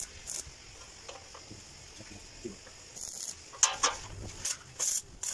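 Stick arc welding on a steel stair joint: the arc crackles and hisses in short bursts, about three times, with a few sharp metallic clicks in between.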